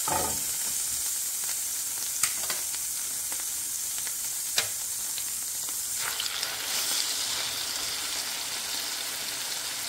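Butter and olive oil sizzling steadily in a hot cast-iron skillet, with two sharp clicks a couple of seconds apart. About six seconds in, the sizzle grows louder as a raw ribeye steak is laid into the hot fat.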